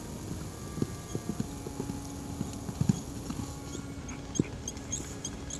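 A pony's hooves thudding irregularly on soft grass and sand as it moves along.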